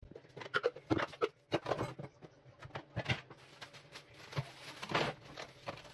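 Clear plastic bag rustling and crinkling as it is handled, in a run of irregular crackles and small knocks, with a fuller rustle about five seconds in.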